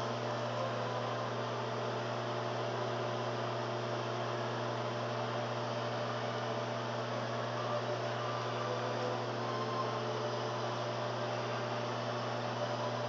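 LG microwave oven running while heating a frozen meal: a low, steady electrical hum from the magnetron's transformer with the even whir of the cooling fan over it.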